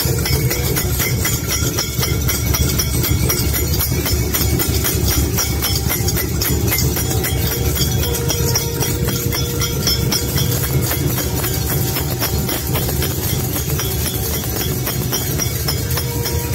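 Fast, continuous rhythmic percussion with metallic clinking over a steady low rumble.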